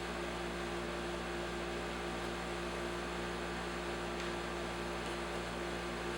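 Steady background hum with a constant hiss, a single steady tone and no distinct events.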